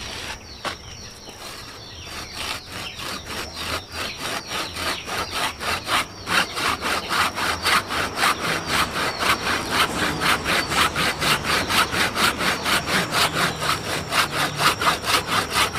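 Hand pruning saw cutting through a live kimeng (Ficus microcarpa) stem in steady back-and-forth strokes, about four a second, growing louder after the first couple of seconds. This is the cut that severs a rooted air layer from the parent tree.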